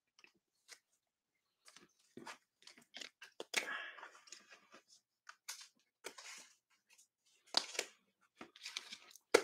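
Trading cards in rigid plastic top loaders being handled and stacked: scattered clicks, taps and rustles of plastic and card.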